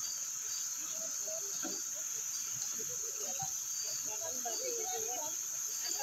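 Steady, unbroken high-pitched drone of forest insects, with faint voices underneath.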